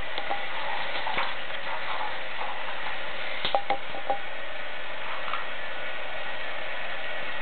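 Water running steadily from a bath tap, an even hiss, with a few small sharp clicks and squeaks about three and a half seconds in.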